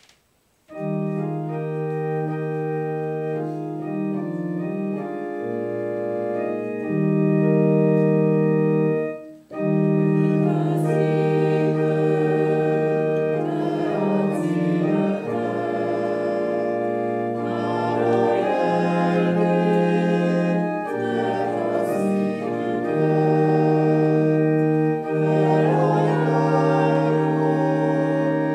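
Organ playing a hymn in sustained chords, starting about a second in, with a short break around nine seconds. After the break, a congregation sings the hymn along with the organ.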